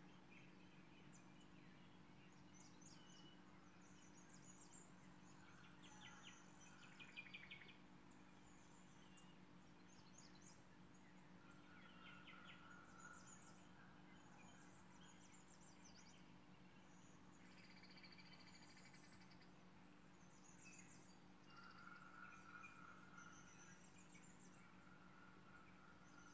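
Near silence: a low steady hum with faint high chirps and trills scattered through it.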